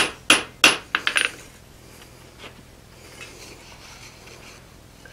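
Hand hammer striking a hot draw knife blade on the anvil face, forging its bevel: four quick ringing blows, the last with a fast rebound, stopping about a second and a half in. After that, a few light metal clinks as the hammer is set down and the blade is handled with tongs.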